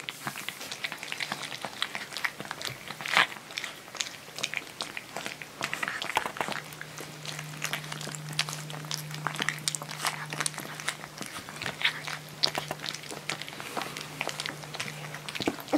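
Three-week-old Husky–Malamute puppies eating water-softened kibble off a plate, their first solid food: many quick, wet chewing and licking clicks.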